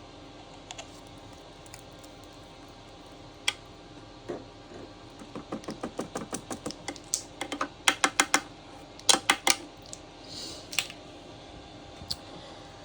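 A quick run of light clicks and taps, about five or six a second, building from about four seconds in and loudest near the end of the run, then stopping.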